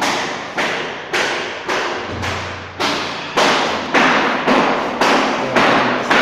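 Steady hammering: about eleven evenly paced heavy blows, a little under two a second, each ringing out briefly after the strike.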